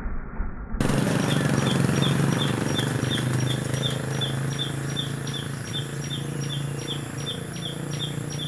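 Outdoor ambience in which a short, high chirp repeats evenly about three times a second over a low, steady hum; the sound changes abruptly about a second in, as at an edit.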